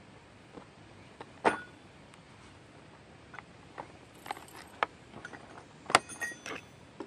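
Irregular clicks and clinks from a wood hole saw set being taken out of its plastic blister pack: the steel arbor, pilot drill bit and saw cups knock against the packaging and each other. The loudest clink comes near the end and rings briefly.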